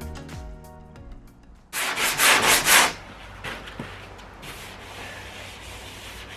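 Hardened body filler on a car panel being sanded. A run of quick, loud rasping strokes comes about two seconds in, then fainter steady sanding continues.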